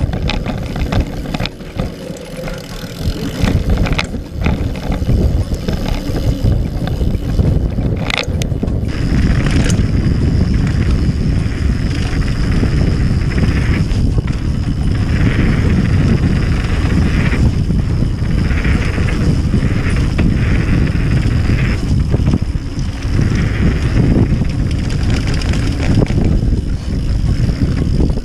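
Mountain bike riding fast down a dirt trail: wind buffeting the camera microphone and tyres rolling on dirt, with sharp knocks and rattles from the bike over rough ground during the first several seconds.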